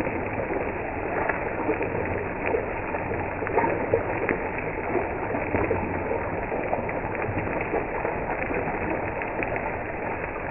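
Fish steaks shallow-frying in hot oil in a pan: a steady sizzle full of small crackles and pops.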